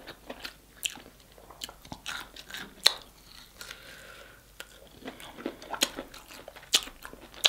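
Close-miked mouth sounds of eating: biting and chewing barbecue-sauced meat off a bone, with irregular wet clicks and smacks.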